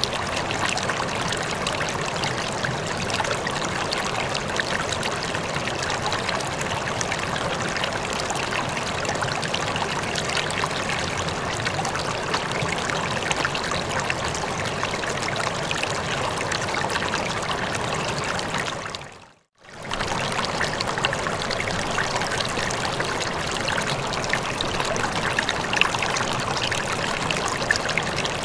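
River water flowing in a steady rush. About two-thirds of the way through it briefly fades out to near silence and straight back in, like a loop point in the recording.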